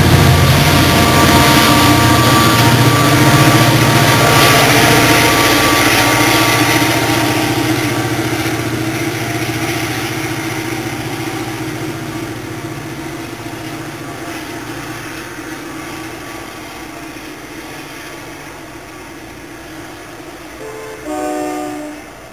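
Diesel train with a New Jersey Transit GEEP locomotive pulling away, its engine and wheel noise loud at first and fading steadily as it recedes. About 21 seconds in, a short train horn blast sounds in the distance.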